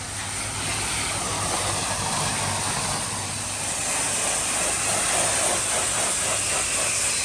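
Pressure washer spraying: a steady hiss of water jet over the even hum of its engine.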